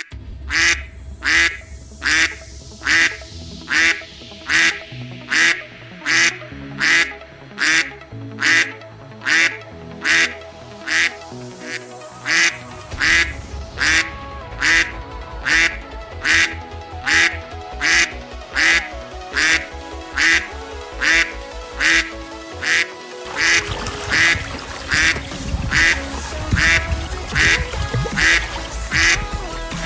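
Duck quacks repeating at an even beat, about one and a half a second, over background music with a bass line.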